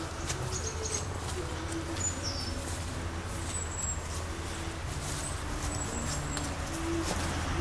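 Birds chirping in short high calls over a steady low outdoor hum, with scattered light clicks.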